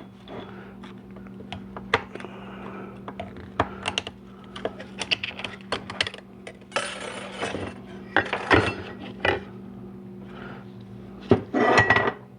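Metal clutch plates and steels from a 4L80e automatic transmission clutch pack clicking and clinking as they are handled and separated, with several short scrapes, the longest a little after halfway and near the end. A steady low hum runs underneath.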